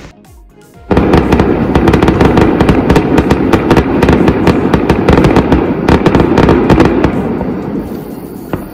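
Fireworks going off: about a second in, a dense run of rapid crackling pops starts and lasts some six seconds before fading, then a single sharp bang near the end.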